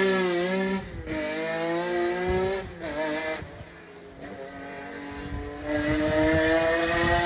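Lancia Stratos engine pulling hard under acceleration, with breaks in pitch between pulls. It backs off to a quieter, lower stretch in the middle, then climbs steadily again near the end.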